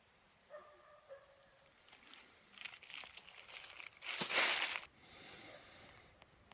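Crinkling and rustling handling noises, crackly at first and building to one loud rustle about four seconds in, then dying down to a softer rustle.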